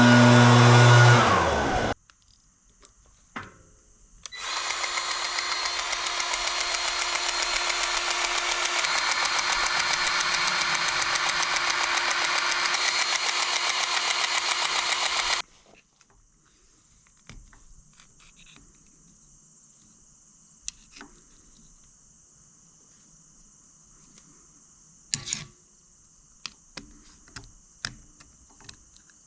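A diesel engine winds down and stops about two seconds in. After a short pause, a steady machine whir runs for about eleven seconds and cuts off suddenly. A quiet stretch follows with a faint high, steady hiss and a few scattered clicks.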